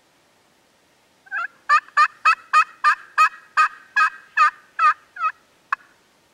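A run of turkey yelps: about thirteen sharp, evenly spaced notes at roughly three a second, starting about a second in, slowing slightly and fading out near the end.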